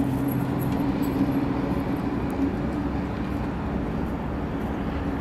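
Steady low motor hum, like a nearby vehicle engine idling, over a constant outdoor traffic noise.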